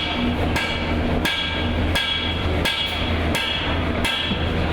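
A blacksmith's hammer striking hot metal on an anvil in a steady rhythm, about seven blows, a little more than one a second. Each blow leaves a short metallic ring, over a steady low hum.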